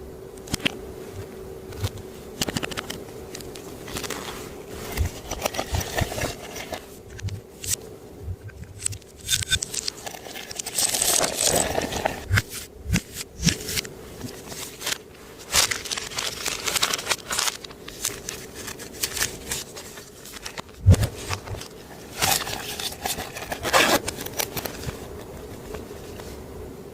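Clear slime being worked by hand, with irregular squishing, crackling and popping as it is pressed, stretched and folded.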